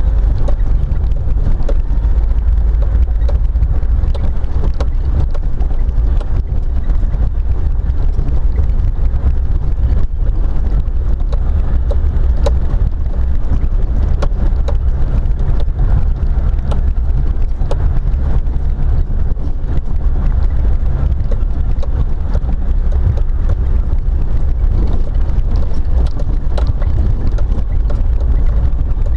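Loud, steady low rumble of a vehicle driving along a rough dirt track, picked up by a camera on its hood, with scattered small knocks and clicks throughout.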